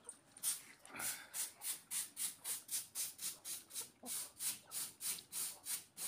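A person calling chickens with a rapid, rhythmic hissing sound, about three to four strokes a second.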